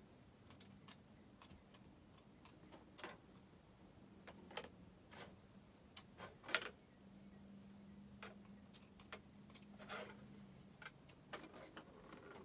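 Scissors snipping into cloth to cut holes: scattered quiet clicks and snips, the loudest about six and a half seconds in. A faint low hum runs for a few seconds in the middle.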